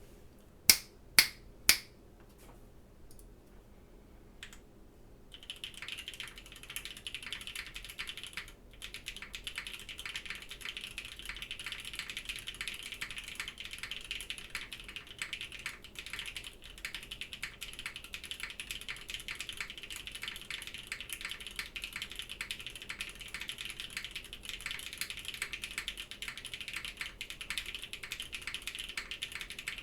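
Typing on a Frog Mini mechanical keyboard with Gateron Baby Kangaroo V2 tactile switches: three sharp, loud clicks in the first two seconds, then steady rapid keystrokes from about five seconds in.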